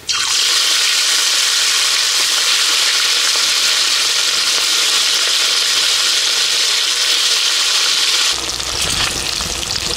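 Pieces of fish rubbed with salt and turmeric frying in hot mustard oil in a karai: a loud, steady sizzle that bursts in as the first piece drops into the oil.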